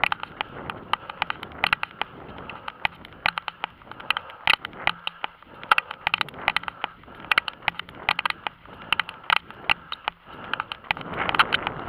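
Running footsteps striking an asphalt road at a steady pace of about three a second, each a short sharp slap, over a light rushing haze that swells near the end.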